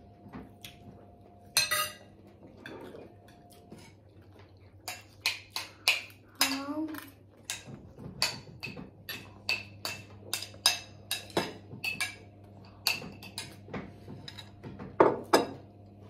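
Knife and fork clinking and scraping against ceramic dinner plates, in sharp irregular clicks that grow frequent from about five seconds in.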